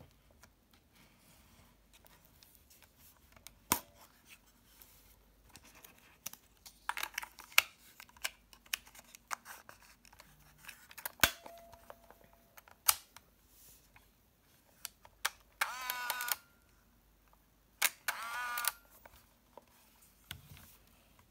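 An Olympus Trip AF 50 compact 35mm film camera is handled while film is loaded: a run of sharp plastic clicks and snaps from the back door and controls. Then the built-in film-advance motor whirs twice, each time for under a second.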